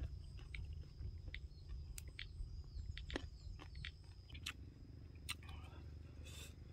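A person chewing a mouthful of lap thao, the Lao freshwater-algae salad, with irregular wet mouth clicks and smacks. A faint steady high tone runs underneath.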